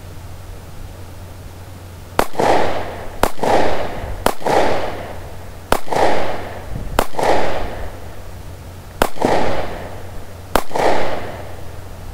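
Taurus PT 709 Slim 9mm pistol firing seven shots of steel-cased ammunition at an uneven pace, one to two seconds apart, each shot followed by a short echo.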